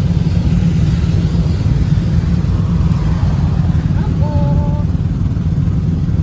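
Engine and road noise of a moving passenger vehicle heard from inside: a loud, steady low rumble. A short two-tone beep sounds about four seconds in.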